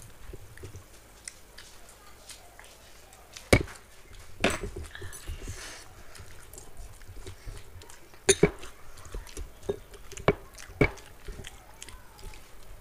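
Eating by hand from steel thali plates: fingers working rice and curry against the steel, with several sharp clicks and knocks on the metal, the loudest about three and a half seconds in and again around eight seconds in.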